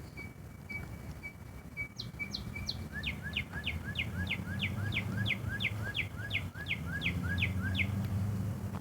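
A bird singing: a steady string of short single notes, then from about two seconds in a run of quick falling whistles, about three a second, each followed by a lower short note, stopping near the end. A steady low hum lies underneath.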